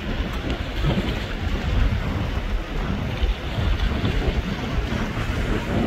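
Wind buffeting the microphone in uneven gusts: a heavy low rumble with a lighter hiss above it.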